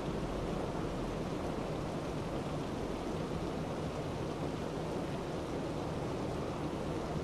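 Steady, even rushing noise like heavy rain, heaviest in the low and middle range, with no separate events.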